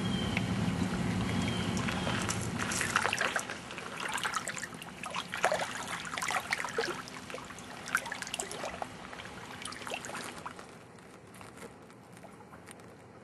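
Lake water lapping and splashing in small irregular trickles against shoreline rocks, dying away near the end. A low steady hum runs under the first few seconds.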